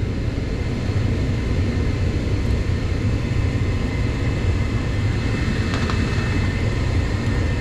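Steady low hum and drone of running heating equipment, such as a blower or burner, with a faint steady high whine over it.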